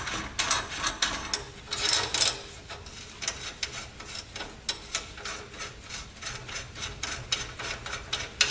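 Irregular metallic clicks and scraping from hand work on the nuts and washers of a Ford F450's leaf-spring U-bolts.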